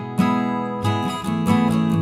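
Background music: acoustic guitar strumming chords, a new chord struck about every two-thirds of a second.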